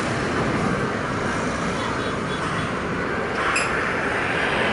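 Steady jet noise from a departing Airbus A320-214's twin CFM56 turbofans as the airliner climbs away after take-off.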